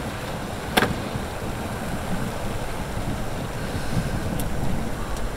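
Steady rushing of wind around the tent, with a single sharp crack about a second in.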